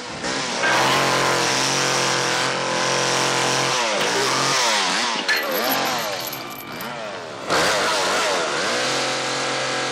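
Two-stroke chainsaw engine running at high revs, steady for the first few seconds, then rising and falling in pitch as the throttle is worked. It jumps suddenly louder about three quarters of the way through.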